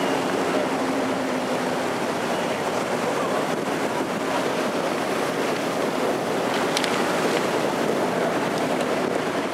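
Motor tour boat running at speed: a steady engine drone under the rush of its churning wake.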